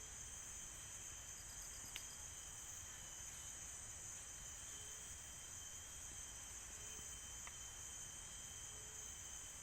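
Steady high-pitched chorus of forest insects, with a short low call repeating about every two seconds.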